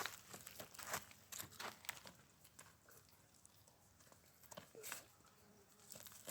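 Faint, scattered rustling and crackling, with a few sharper clicks about a second in and again near the end.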